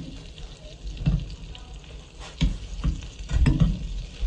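A whole white crappie frying in melted butter in a metal skillet, with a steady sizzle. A metal spoon bastes it, scraping and knocking in the pan several times.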